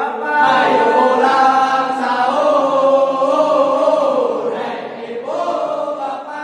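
A group of young men chanting together into a microphone, a sahur wake-up call sung in Sundanese, their voices holding long drawn-out notes with a short break about five seconds in.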